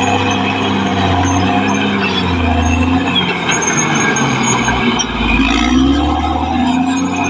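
Caterpillar D6R XL bulldozer's diesel engine working under load. Its pitch sags about halfway through, then climbs again as it picks up.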